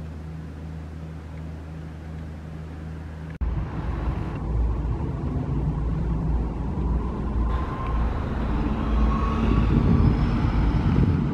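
A steady low hum, then from about three and a half seconds in a city bus driving through: a low engine rumble with a faint rising whine as it pulls away, loudest near the end.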